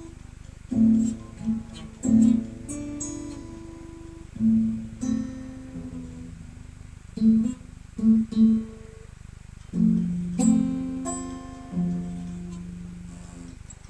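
Acoustic guitar played slowly: plucked notes and chords that ring and fade, with short pauses between phrases, as in a practice run-through of a song's melody.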